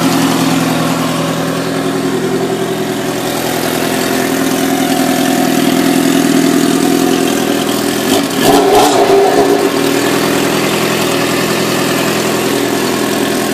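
1997 Suzuki GSX-R750's inline-four engine idling with a ticking noise, which the owner takes for valves needing adjustment and a worn cam chain tensioner. The throttle is blipped briefly about eight seconds in, and the engine cuts off at the very end.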